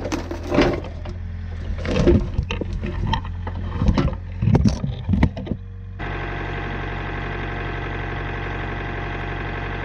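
A machine's engine runs steadily under a rattle of knocks and clatter for the first six seconds. About six seconds in, the engine note jumps suddenly to a steady, fuller running sound.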